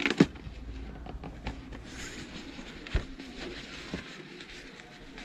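A helmet's cardboard box and its cloth helmet bag being handled: a few sharp knocks right at the start, light rustling, and a single knock about three seconds in. Under it is a low rumble that dies away about four seconds in.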